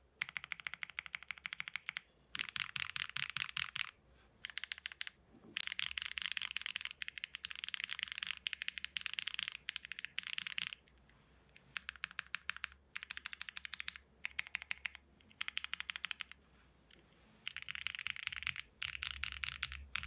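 Fast typing on a Choice65 gasket-mount mechanical keyboard with stock Rouge switches, a PC plate and EPBT PBT keycaps. The rapid keystrokes come in runs of one to three seconds, broken by short pauses.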